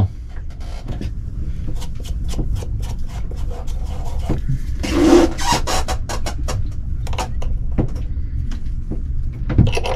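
Irregular clicks, knocks and scraping of tools and metal parts while old rubber engine mounts on a marine diesel are swapped for new ones, over a steady low rumble. A louder scrape comes about halfway.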